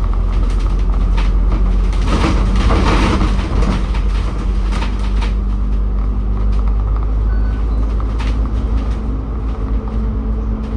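A city bus on the move, heard from on board: a loud, steady low rumble of engine and road with a constant hum. A surge of louder road noise comes about two to three seconds in, with a few short rattles and knocks.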